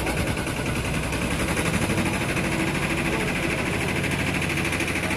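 Engine of a small motorised farm cart idling steadily, with a fast, even chugging.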